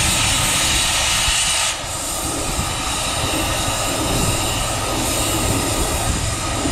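Case 150 hp steam road traction engine running belted to a prony brake, with a fast, steady beat and a loud hiss that drops away about two seconds in.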